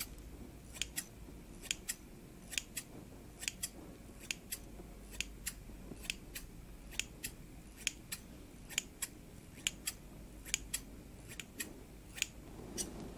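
Hair-cutting scissors snipping close to the microphone over a wig's hair, their blades opening and closing. The sharp metallic snips come in pairs, about one pair a second, in a steady rhythm.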